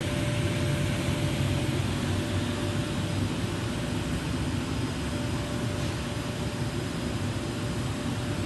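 Timesaver grinding and deburring machine running: a steady mechanical noise with a faint constant tone running through it.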